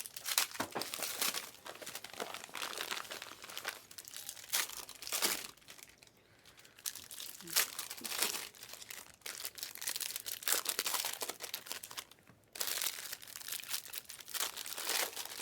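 Plastic trading-card packaging crinkling and tearing in crackling bursts, with two brief lulls.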